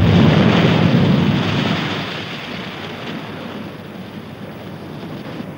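The rumbling aftermath of an underwater mine explosion at sea, set off by a magnetic-mine sweep. It is loud at first, fades steadily over two to three seconds, then lingers at a lower level.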